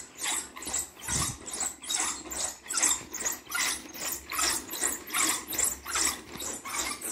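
Wooden foot-massage roller clattering as both feet roll it back and forth: its wooden rollers rattle in a steady rhythm, about two clatters a second, a sound its user calls too much loud.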